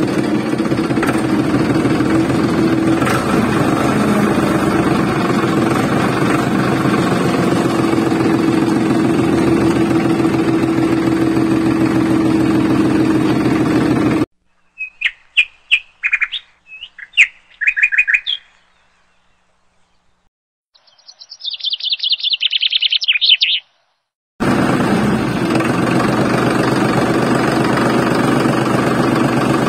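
Steady tractor engine sound with a low hum, cut off suddenly about halfway through. Then come a few short bird chirps and a rapid high-pitched bird call, before the engine sound starts again just as suddenly near the end.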